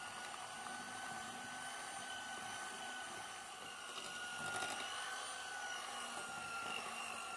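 Electric hand mixer running with a steady motor whine as its beaters blend flour and baking powder into a cake batter, the pitch wavering slightly as the beaters work through the thickening mix.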